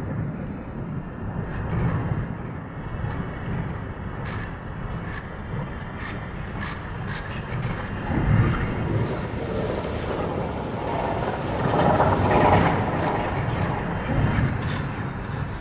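Sci-fi alien-planet ambience sound effect: a continuous low rumble with scattered faint ticks, building to a louder swell of higher noise about ten to thirteen seconds in, then settling back.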